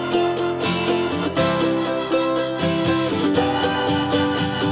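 Background instrumental music led by plucked acoustic guitar.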